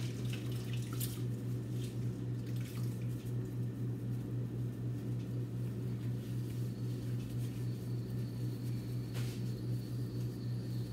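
A steady low hum, with a couple of faint clicks about a second in and again near the end.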